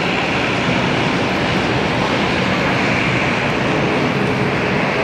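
Steady jet engine noise from an ANA Boeing 787-8 during its landing.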